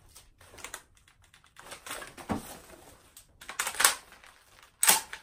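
Clicks and rattles of a magazine change on a replica Howa Type 89 rifle, ending near the end in a sharp snap as the bolt release lever lets the bolt go forward.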